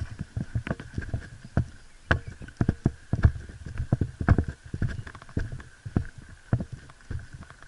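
Mountain bike clattering over rough trail: irregular knocks and rattles a few times a second, over a faint steady high tone.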